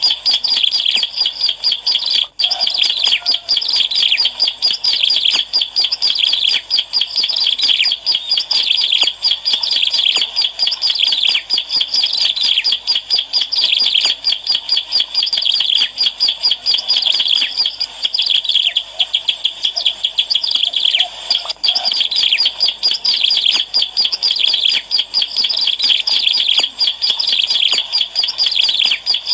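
Ciblek alang-alang (a prinia) singing without pause: a dense, fast run of high chirping notes with hardly a break, a lure song of a bird in full voice.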